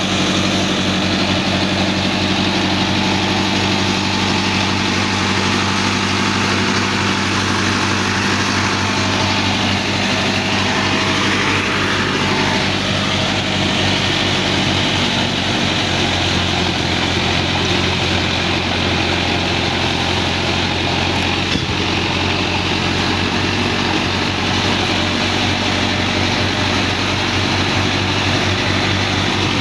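Mahindra Arjun 605 DI tractor's diesel engine running steadily under load, driving a rear-mounted rotary banana mulcher that shreds banana plants and churns the soil.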